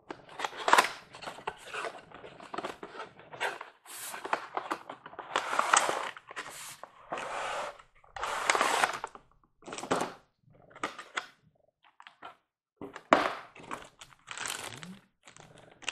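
Plastic wrapping crinkling and cardboard boxes scraping and thunking as a model train passenger car is slid out of its box and handled in its plastic bag, in irregular bursts.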